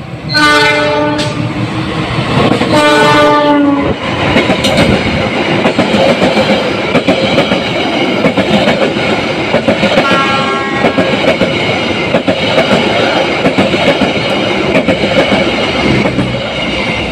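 Diesel locomotive horn of the Argo Wilis express sounding two long blasts as the train runs through the station, then the express passing close at speed with its wheels clattering over the rail joints. A shorter, fainter horn blast comes about ten seconds in.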